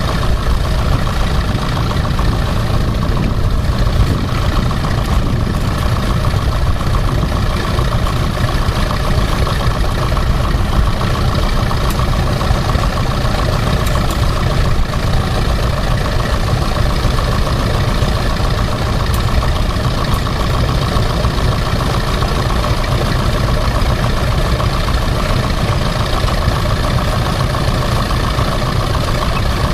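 Tractor engine running steadily with an even, unbroken drone.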